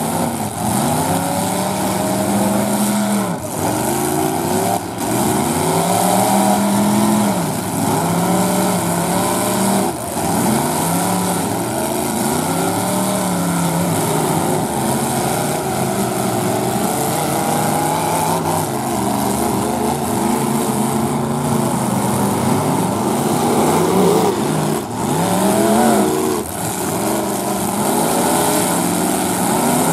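Several demolition derby cars' engines revving up and down over one another as they ram each other, with a few sharp bangs from collisions.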